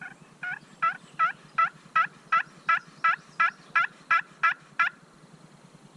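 A turkey call run through a sequence of hen yelps: about a dozen short, evenly spaced yelps at a little under three a second, stopping about five seconds in. The call is meant to draw in a gobbler that had been heard gobbling.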